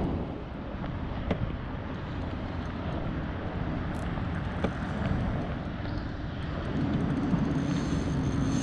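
Steady wind rumble on the microphone of a kayak-mounted camera out on open water, with a few faint clicks.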